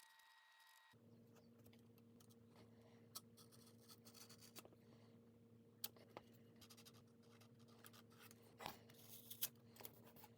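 Near silence: faint scratching and a few light clicks of small handwork over a steady low hum.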